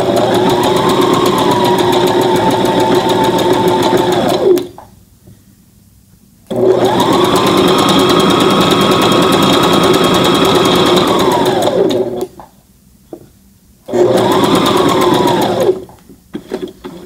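Brother ST371HD sewing machine stitching knit fabric on its straight stretch stitch, run in three spells: each time the motor whine rises as it speeds up, holds steady, then falls as it stops. The first two spells last several seconds each, the third about two seconds, with short pauses between them.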